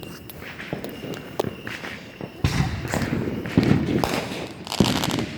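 Consumer fireworks going off: three dull thumps about a second apart, each with a short noisy tail.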